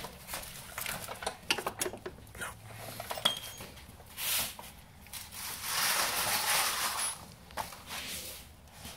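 Metal clinking and tapping of a screwdriver working in the rear axle bushing bracket to line up its bolt holes. About four seconds in come two stretches of scraping, the second longer.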